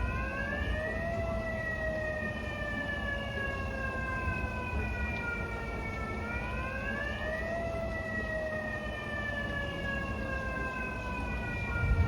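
Megaphone siren wailing: its pitch sweeps up quickly, then falls slowly for several seconds, and the cycle repeats about six seconds in. A steady low rumble runs underneath.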